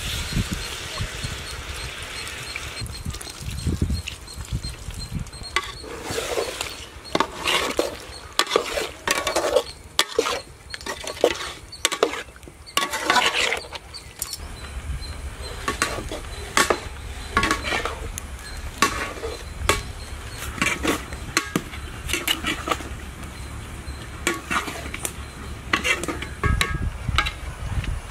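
Rum poured from a bottle into a pot of thick chicken curry for the first couple of seconds, then a metal ladle stirring the curry in a metal pot, scraping and knocking against the pot's sides in irregular strokes.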